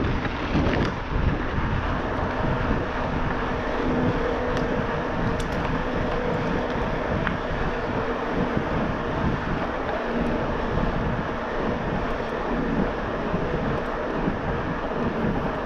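Riding noise on an e-mountain bike with a Bosch Performance Line motor: wind rushing over the action camera's microphone, with a faint steady hum from the drive unit under assist.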